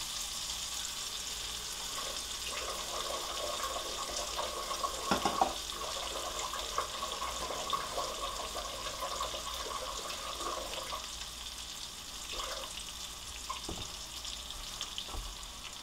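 Chicken in pesto sauce sizzling gently in a frying pan, with water running from a tap for several seconds in the middle as water is fetched to add to the drying sauce. There are a few light knocks.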